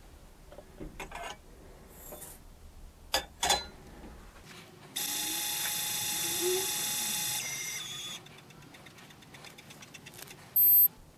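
Lyman Gen6 electronic powder dispenser throwing a 30-grain charge. A few light clicks, then the dispensing motor runs fast for about two and a half seconds, slows, and goes on as a fine rapid ticking trickle. A loud short beep near the end signals that the charge is complete.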